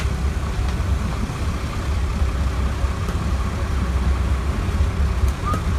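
A charter fishing boat's engines running steadily at low speed, a constant deep rumble, with wind and water noise over it.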